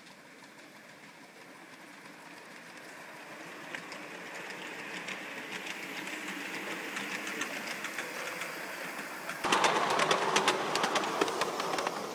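A 5-inch gauge ride-on miniature train running on its garden track, growing steadily louder as it comes closer. About nine and a half seconds in it becomes suddenly louder, with a rapid clatter of wheels on the rails.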